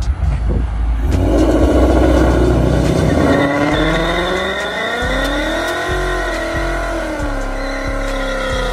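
Ford Mustang's engine held at high revs during a burnout, rear tyres spinning. The revs climb about a second in, waver and rise again midway, then drop off near the end.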